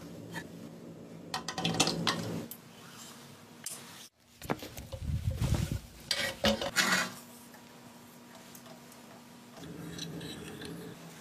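Metal motorcycle parts being handled and fitted during assembly: clusters of clinks and knocks, with a duller low rumble of handling in the middle, over a faint steady hum.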